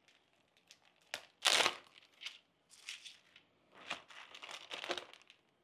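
Plastic packaging of sliced cheese crinkling and tearing as it is pulled open by hand, in short irregular bursts, the loudest about a second and a half in.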